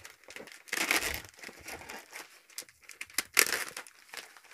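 Plastic mailing bag being torn open by hand, the film crinkling and ripping in irregular bursts. The loudest rips come about a second in and again about three and a half seconds in.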